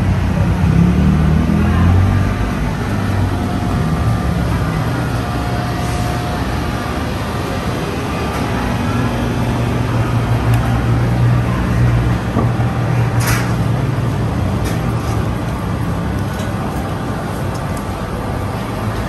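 Street traffic: motor vehicle engines running and passing close by, with a heavy vehicle such as a bus humming loudest near the start and again about ten to thirteen seconds in. A brief sharp high-pitched sound cuts through about thirteen seconds in.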